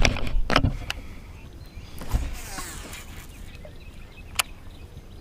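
Handling noise from a kayak angler's gear: a cluster of sharp knocks and clicks, then a low thump about two seconds in followed by a short whir, and one sharp click near the end.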